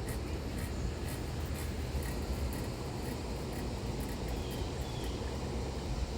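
Cicadas buzzing steadily in the background, over a low outdoor rumble.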